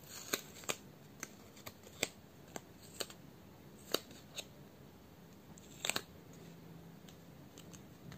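A paper nail form being bent and pressed around a fingertip: light, sharp paper clicks and crackles at irregular intervals, the loudest a quick double click about six seconds in.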